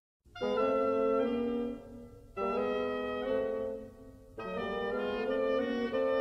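Orchestral film score: after a brief silence, three sustained chords come in one after another, each held about two seconds before the next begins.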